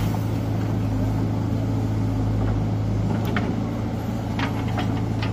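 JCB backhoe loader's diesel engine running steadily as it works its loader bucket through a heap of wheat, with a few short sharp clicks about three seconds in and again near the end.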